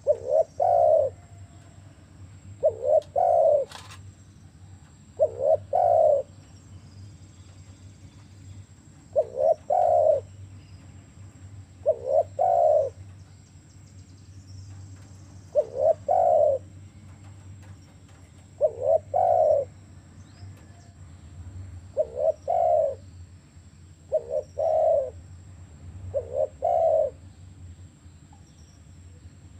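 Spotted dove (tekukur) cooing: short phrases of two or three coos, repeated about every three seconds, over a faint steady hum.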